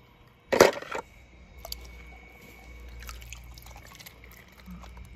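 A single loud splash in a bucket of water as a small die-cast toy car goes in, then faint drips and small water sounds.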